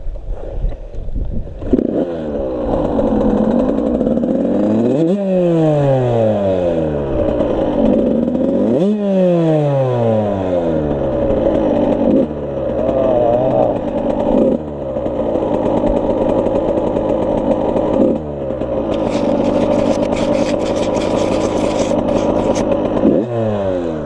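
Suzuki RM85's 85cc single-cylinder two-stroke engine under way, its pitch climbing and then falling sharply twice as it revs up and drops off, with further abrupt changes in the engine note as the rider works the throttle. A few seconds of clattering join it near the end.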